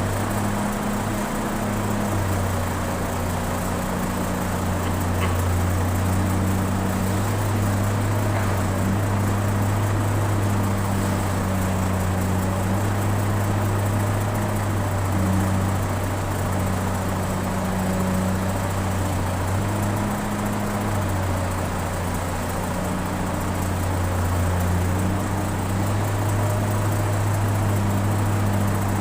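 Excavator's diesel engine running steadily under load, a continuous low drone whose pitch shifts slightly as the machine works.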